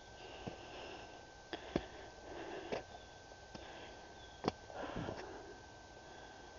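Footsteps crunching on a snowy, rocky path, with several sharp clicks and knocks scattered through.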